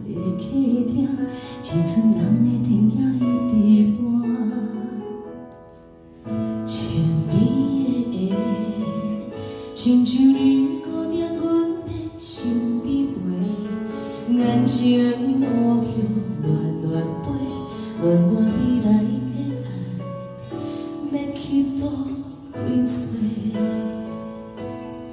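Two women singing a Mandarin pop ballad live into handheld microphones over an instrumental backing, trading lines and sometimes singing together, with a short break about six seconds in.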